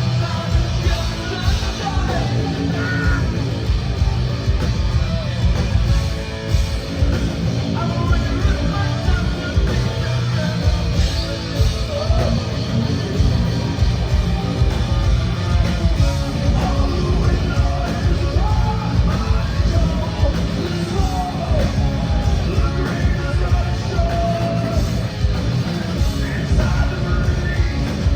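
Live heavy metal band playing loudly: distorted guitars, bass and fast pounding drums with a shouted lead vocal.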